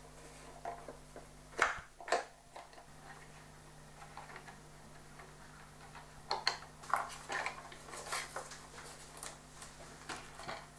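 Light clicks and taps of small plastic model-aircraft parts being handled and fitted by hand on a workbench: two near two seconds in, then a loose run of them in the second half, over a faint steady hum.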